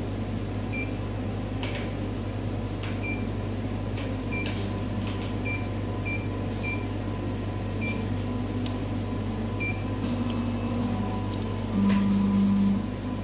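Keypad beeps from a Cornley K-Lite electrolyte analyzer as its buttons are pressed: eight short high beeps at uneven intervals over about ten seconds, with a few faint clicks, over a steady machine hum. Near the end a louder low hum sounds for about a second.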